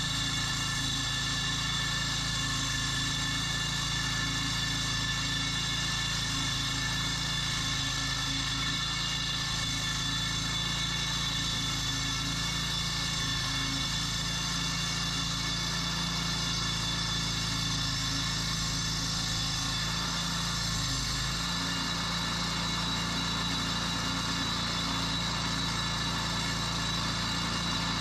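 Small gas engine of a Bartell walk-behind concrete floor saw running steadily, its note dipping briefly about two-thirds of the way through.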